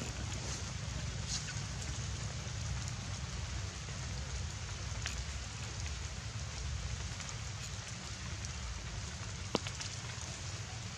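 Rain falling on surfaces: a steady patter over a low rumble, with a couple of sharper single drops about halfway and near the end.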